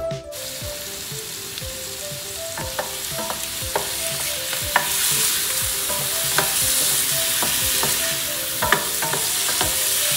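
Diced chicken and onion sizzling in hot oil in a stainless steel sauté pan, stirred with a wooden spoon that clicks against the pan now and then. The sizzle starts abruptly just after the beginning and grows louder about halfway through.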